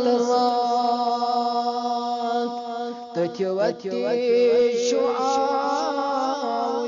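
A man singing a devotional nasheed in a slow melody of long held notes. About three seconds in, the held note breaks into a few quicker syllables, then the voice returns to long notes with wavering ornaments.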